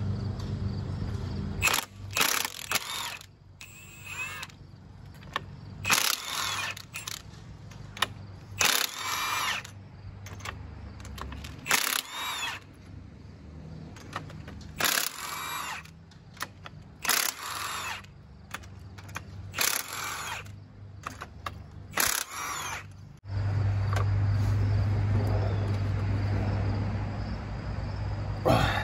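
Cordless impact wrench loosening the rocker-arm bolts on a Jeep 4.0 inline-six cylinder head, in about ten short bursts a few seconds apart, each bolt backed off a little at a time. A steady low drone starts about three-quarters of the way through and runs on.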